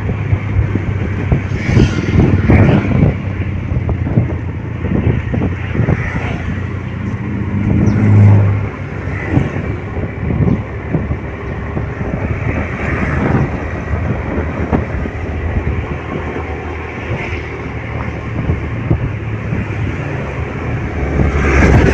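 Motorcycle engine running at road speed, heard from on the bike, with wind noise on the microphone. The hum swells louder briefly about eight seconds in.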